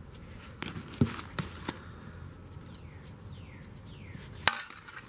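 Small old parts being handled and rummaged out of a cardboard box: a few clicks and clinks in the first couple of seconds, and one loud sharp click near the end.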